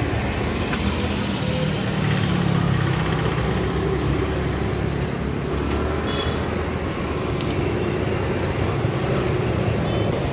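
Steady street traffic: engines of passing and idling road vehicles make a continuous low rumble.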